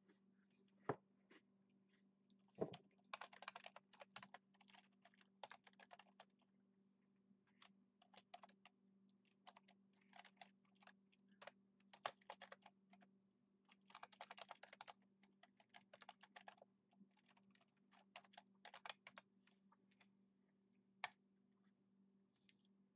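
Typing on a computer keyboard in short bursts of rapid keystrokes, with a few single sharper clicks in between, over a faint steady low hum.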